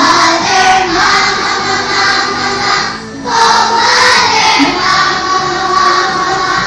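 Group of children singing together, with a short pause between phrases about three seconds in.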